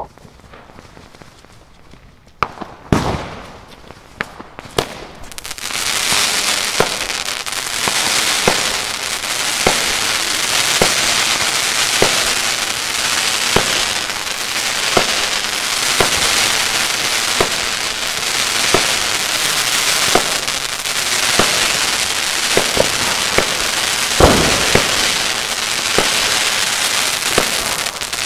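Consumer fireworks battery (cake) firing. A loud bang and a few pops come first. From about five seconds in there is a dense crackling hiss, with evenly spaced shots about three every two seconds and one heavier bang near the end.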